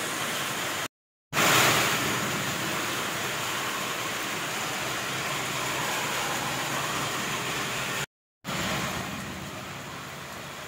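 Rain falling in a steady hiss, broken by two brief gaps about one and eight seconds in, and softer after the second gap.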